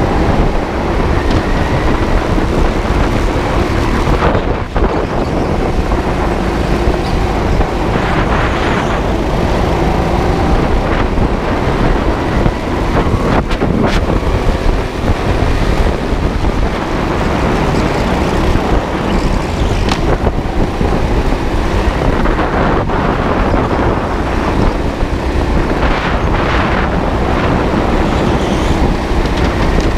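Onboard sound of a go-kart driven hard: steady motor noise mixed with wind buffeting the microphone, the motor's pitch rising and falling with speed.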